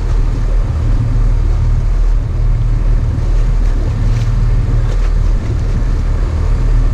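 Fishing boat underway, its engine running steadily with a deep low drone, mixed with the rush of water and wind.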